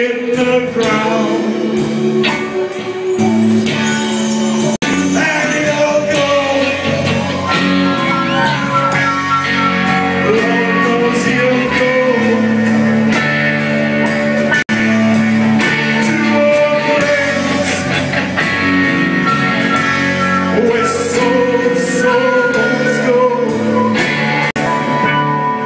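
Live rock band playing, with electric guitars, bass and drums, loud and continuous.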